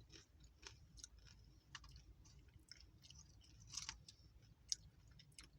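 Faint close-up chewing of Nachos BellGrande tortilla chips, with irregular small crunches and wet mouth clicks.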